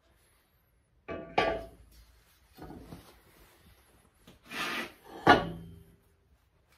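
A heavy cast iron exhaust manifold being handled on a hard surface: a scrape and knock about a second in, softer rubbing, then a scrape and a sharp clunk with a brief metallic ring about five seconds in.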